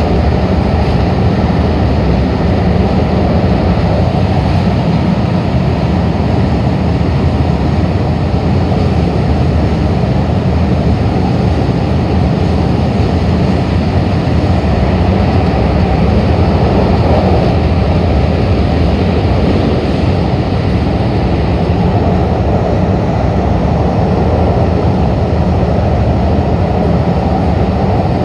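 Steady rumble of an MTR K-Train electric multiple unit running at speed, heard inside the carriage: even wheel-and-track noise with a constant low drone.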